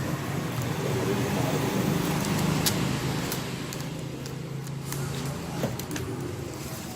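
Steady low traffic or engine hum in the background, with scattered sharp clicks and crinkles of cardboard and plastic packaging being handled as a phone's box is unpacked.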